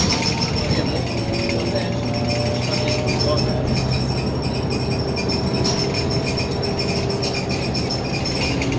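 Scania L94UB single-decker bus heard from inside while it drives: a steady engine and drivetrain hum, with a transmission whine that slides up and down in pitch and light rattling from the interior fittings.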